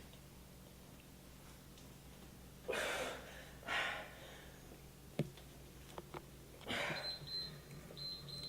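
A person breathing hard from exercise: two sharp exhalations about three and four seconds in and another longer one near seven seconds, with a single knock about five seconds in.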